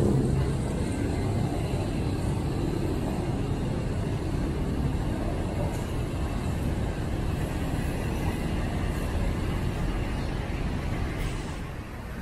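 Steady city traffic noise, with the engines of road vehicles and buses running, easing a little near the end.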